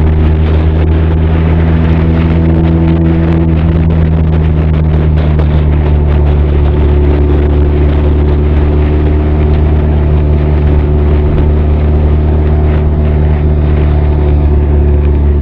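Benelli TRK 502's parallel-twin engine and exhaust running steadily under way, picked up close to the exhaust. The low, even engine note holds nearly constant pitch throughout, as at a steady cruise.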